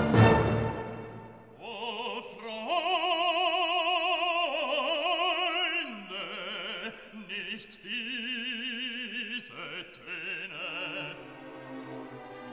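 Background music: a loud orchestral chord dies away at the start, then an operatic voice sings long held notes with a wide vibrato over orchestra.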